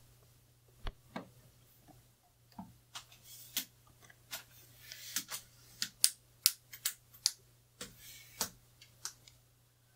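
Sharp clicks and clacks of an aluminium tripod leg with a ball head being handled and adjusted, a few scattered at first, then a quick run of louder ones in the middle.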